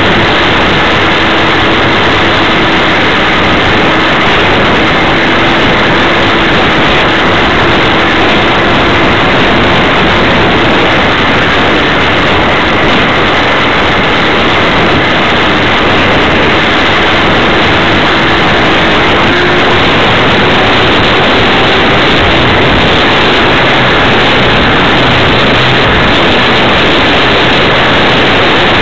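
RC model biplane's motor and propeller running steadily in flight, heard through an onboard camera's microphone buried in loud wind rush, with a faint hum that drifts a little in pitch.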